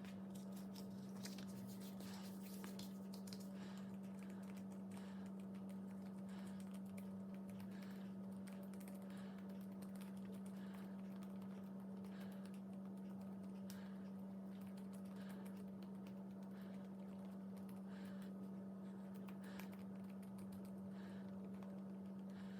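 Faint small sticky clicks and crackles of green slime being pulled apart and worked by hand, over a steady low hum.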